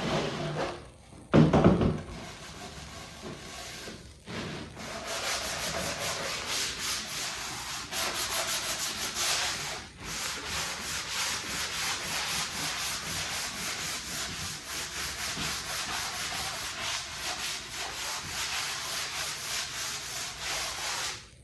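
A hand sanding block rubbed back and forth over a pine board in quick, even strokes, lightly taking the store-bought surface off the wood. A loud thump comes about a second and a half in.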